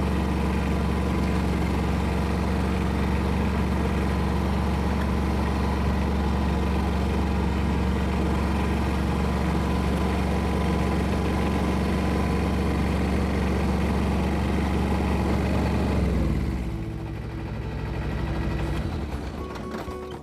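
Engine running at a steady speed, then slowing with a drop in pitch about sixteen seconds in.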